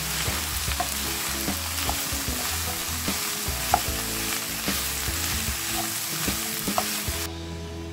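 Courgette and yellow pepper strips sizzling as they are stir-fried with pork and onion in a non-stick frying pan, a wooden spatula knocking and scraping against the pan now and then. The sizzle cuts off near the end.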